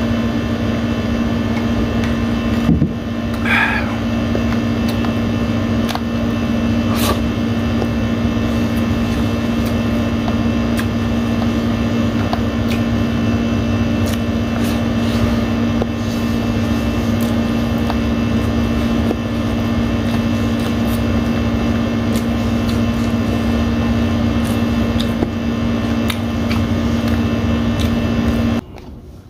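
Air conditioner running with a loud, steady hum that holds one low tone, cutting off abruptly near the end; it drowns out the quieter eating sounds.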